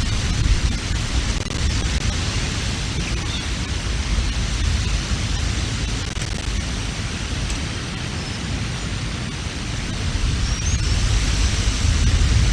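Strong wind buffeting the nest camera's microphone: a steady rush of noise with a deep rumble underneath. The rumble swells again in a gust over the last few seconds.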